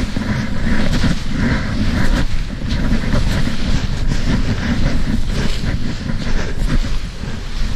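Continuous rough scraping and hissing of snow against clothing as a person slides seated down a snowy slope.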